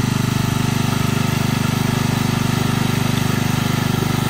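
Small garden tractor's engine running steadily with a fast, even throb as it pulls a weight-transfer sled in a tractor pull, working under the sled's load.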